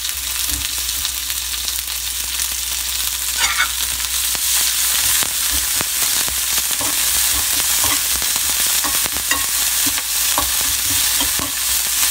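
Tempering of chopped ginger, curry leaves and coriander with mustard seeds sizzling in a spoonful of sesame oil in a small nonstick pan. A steel spoon stirs and scrapes through it, with many light clicks against the pan.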